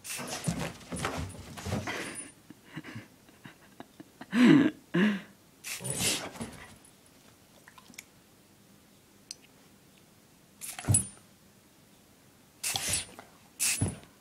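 A dog making short noises in scattered bursts, the loudest two close together about four and a half seconds in.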